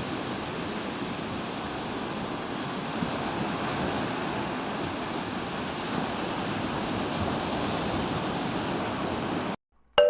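Steady rushing of ocean surf, even in level, that cuts off abruptly near the end.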